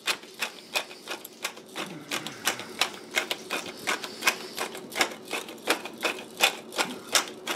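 Hand-held pepper mill being twisted over a dish, its grinder clicking steadily about three times a second as it cracks pepper.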